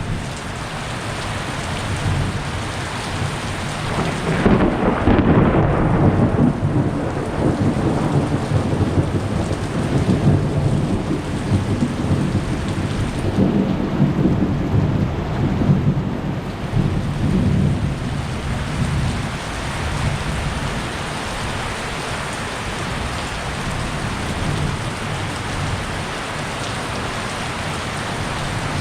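Heavy rain falling steadily, with thunder rolling in twice: a long low rumble swells about four seconds in and fades, and another comes about halfway through.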